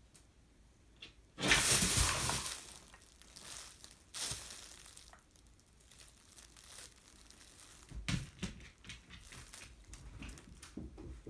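Fabric cat play tunnel crinkling and rustling as a cat runs through it: a loud burst of crinkling about a second and a half in, a shorter one a few seconds later, then lighter scattered rustles as the cat shifts about inside the opening.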